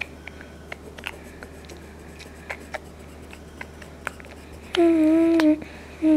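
Faint scratching of a pencil drawing on paper, with a few light ticks. Near the end a voice holds one steady note for under a second, then makes a shorter sound that falls in pitch; these are the loudest sounds.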